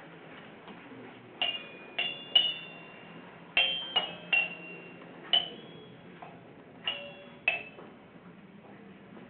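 Found objects hanging from a rack struck one at a time as improvised percussion: about nine short, bright, ringing clinks at an uneven pace, each dying away quickly.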